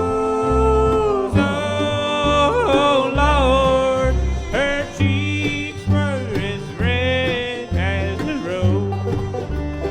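Bluegrass band playing an instrumental break, with a bowed cello lead of held and sliding notes over banjo, guitar and a steady string-bass pulse.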